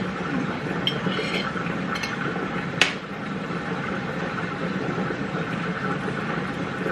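Light kitchen handling sounds over a steady background hum: a fork on a ceramic plate and a sriracha squeeze bottle being handled and squeezed, with a few small clicks and one sharper click about three seconds in.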